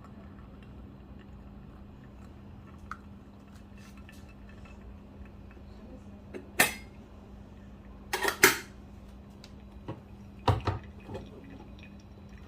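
Kitchenware being handled: a few sharp clinks and knocks, the loudest a quick pair a little past the middle, over a steady low hum.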